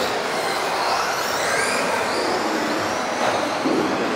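Several electric RC offroad cars racing, the high whine of their motors and drivetrains rising and falling in pitch as they accelerate and brake, over the rush of tyres on the track surface.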